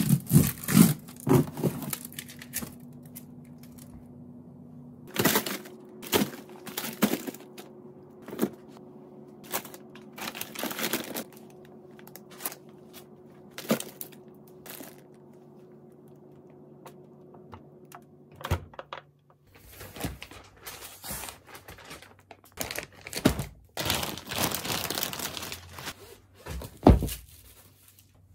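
Plastic and paper frozen-food packages crinkling and rustling as they are handled in an open freezer drawer, over the steady hum of the refrigerator. About two-thirds of the way through, the hum stops, and a large rolled rug rustles and thumps as it is handled on a wooden floor.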